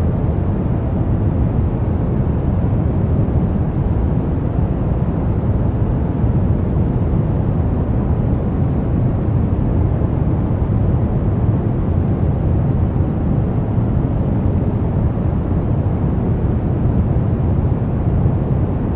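Steady ambient noise of the kind used for focus and sleep, a deep, even rush weighted toward the low end with little hiss, unchanging throughout.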